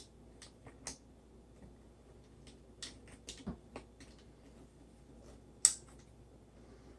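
Light clicks and taps as tripod and camera-mount parts are handled, scattered irregularly, with one sharper click about five and a half seconds in.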